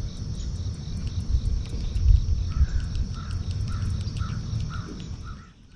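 Crickets chirring steadily, with a bird calling about six times in an even series in the second half. A low rumble is the loudest sound and stops shortly before the end.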